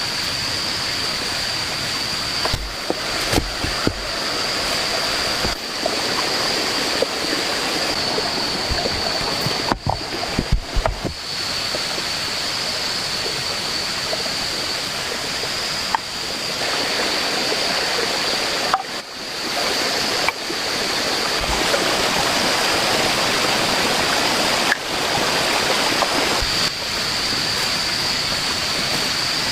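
Steady rushing of a jungle stream, with a constant high-pitched insect drone over it. The sound dips briefly a few times.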